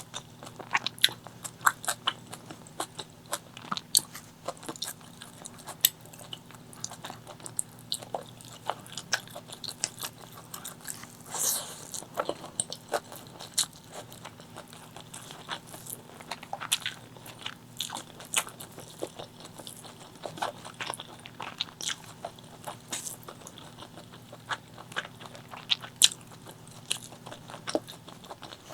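Close-miked eating: chewing and biting into spicy chicken liver, gizzard and rice, with many short sharp wet clicks and crunches and one longer, louder bite about halfway through.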